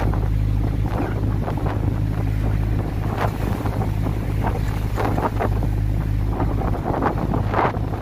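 A fishing boat's engine running with a steady low hum under strong wind buffeting the microphone, with rough sea splashing along the hull.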